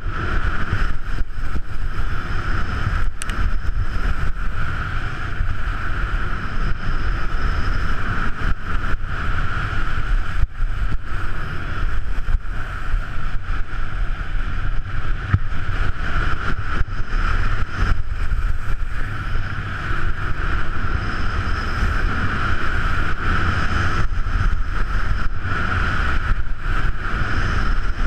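Steady wind rush over an action camera's microphone at skiing speed, with a heavy low rumble, mixed with the hiss of skis sliding on packed snow.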